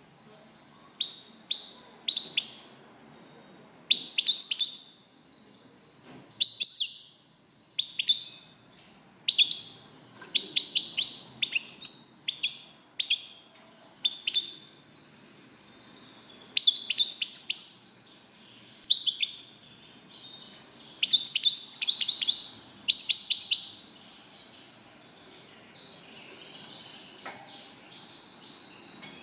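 European goldfinch calling in short bursts of sharp, twittering notes, one burst every second or two. Near the end it runs into a continuous twittering song.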